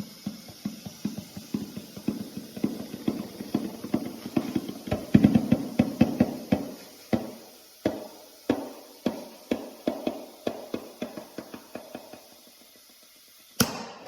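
A rapid series of short percussive knocks, about four a second, thinning out to about two a second in the second half and dying away, with one sharp click near the end.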